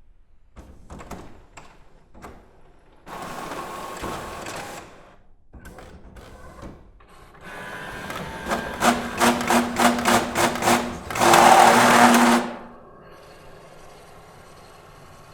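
Inkjet-style office printer printing an A4 page: scattered clicks and a whir as the paper is drawn in, then a rapid run of mechanical strokes, about four to five a second. A loud sustained whir comes near the end, followed by a faint steady hum.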